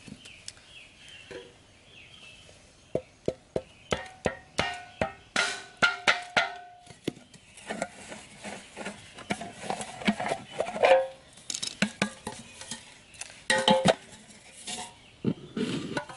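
Metal milk-powder tin and bamboo stakes being handled: irregular clicks, knocks and scrapes, some with a brief metallic ring, coming thick and fast from about three seconds in. Faint bird chirps at the start.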